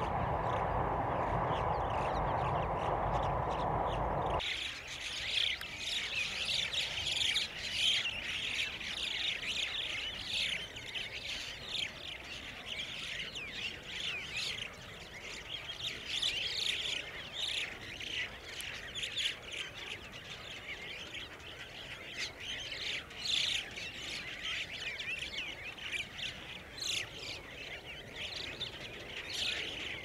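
A flock of crested mynas calling and chattering, with many short, overlapping calls. For the first four or so seconds there is only a steady low rumble, which stops suddenly as the calling begins.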